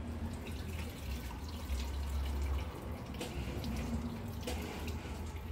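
Water poured from a plastic bowl over hair, splashing and dripping into a salon wash basin with scattered small splashes.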